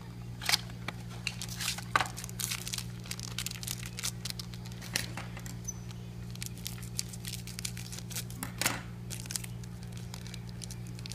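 Foil trading-card pack crinkling and crackling as it is handled and worked open by hand, in bursts over the first half and once more sharply near the end. A low steady hum runs underneath.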